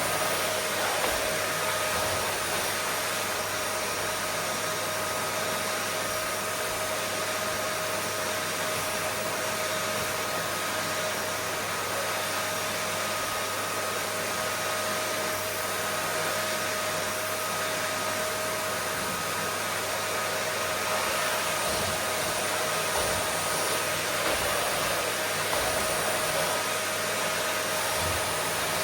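Vacuum cleaner running steadily: an even rush of air with a motor whine held at one pitch.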